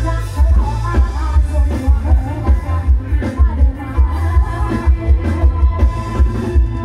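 Band music played loud through a Thai rot hae sound truck's speaker stacks, with a heavy, steady bass beat under a lead melody.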